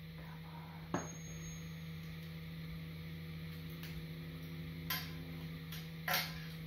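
Three light metallic clicks as a wrench works the motorcycle's exhaust header nuts, about one second in, near five seconds and just after six, over a steady low hum.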